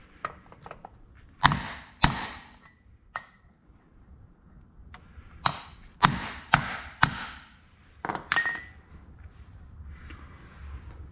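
Hammer blows on a steel pipe drift, about nine sharp metallic strikes in uneven groups, each with a short ring, driving a seized clutch thrust bearing off its carrier.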